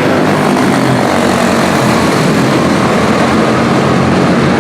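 Quarter midget race cars with small single-cylinder Briggs & Stratton Animal engines running together at racing speed, a loud steady buzz of several engines.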